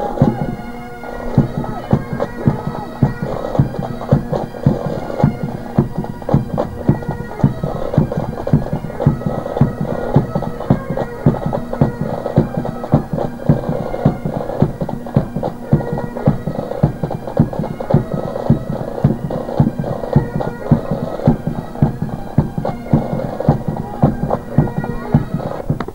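Bagpipes playing a march over their steady drones, with a regular beat about twice a second.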